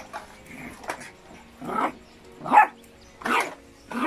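Puppy barking repeatedly, about five short barks spaced under a second apart, the loudest about halfway through.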